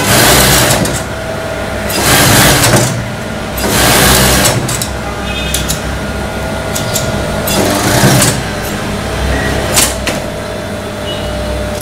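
Industrial sewing machine stitching a folded tracksuit leg hem in four short runs of about a second each, with a steady hum between runs and a few light clicks near the end.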